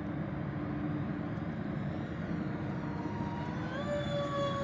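Electric ducted fans of an RC model jet whining in flight, the whine rising in pitch about three and a half seconds in and then holding steady as the throttle is opened.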